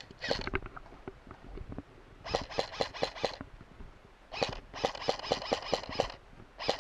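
Airsoft electric rifle firing full-auto bursts, a rapid string of sharp clicks at about ten shots a second. There are three bursts: one of about a second, a longer one of nearly two seconds, and a third starting near the end.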